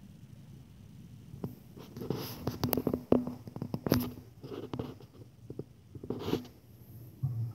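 Close handling noise: a run of sharp clicks and scrapes with three rustling bursts as the camera is shifted about among tree branches and clothing.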